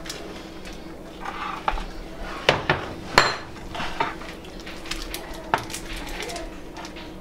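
Spoon scraping and clinking against a glass baking dish as brownie batter is spread out evenly, with a few sharp clicks scattered through.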